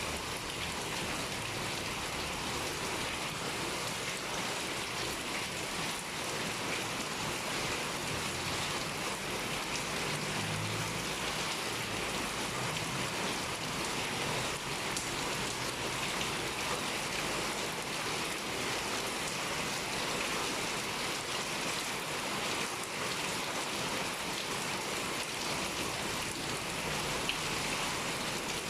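Steady heavy rain pouring down, a dense even hiss of raindrops striking surfaces.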